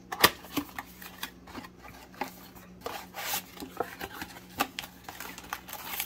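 Paperboard trading-card box being opened by hand: a sharp snap of the cardboard about a quarter second in, then irregular taps, scrapes and rustles as the flaps are folded back and the foil card packs inside are handled and pulled out near the end.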